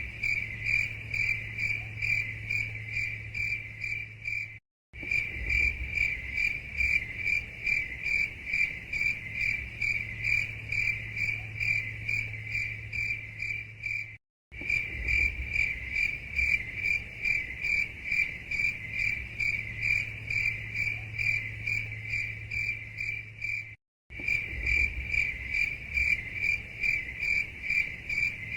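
Crickets chirping in a fast, even rhythm of high-pitched pulses, over a faint low hum. The sound cuts out to silence for a split second three times.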